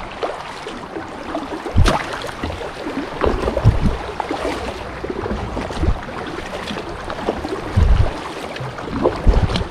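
Water sloshing and slapping against the hull of a Pungo kayak as it rides through choppy boat wake, with a few louder low thumps and splashes at irregular moments.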